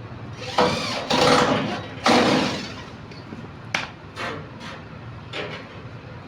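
Workshop tool noise: three loud, noisy strokes in the first two and a half seconds, then three short sharp knocks spread over the next few seconds.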